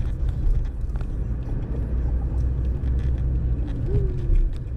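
Car driving slowly, heard from inside the cabin: a steady low rumble of engine and tyres, with a brief short whine about four seconds in.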